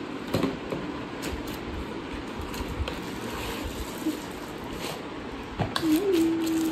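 Cardboard box and plastic wrapping being handled as a product is slid out of its packaging: soft rustling with scattered light knocks and crackles. A short steady hum-like tone comes in near the end.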